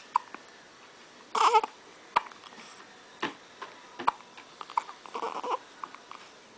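Baby twins hiccuping, with short sharp hics about once a second. Twice there is a brief fussy cry, about a second and a half in and again near the end.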